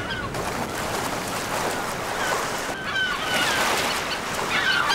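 A flock of gulls calling in short, squawking cries, with the calls coming thickest near the end, over a steady wash of sea noise.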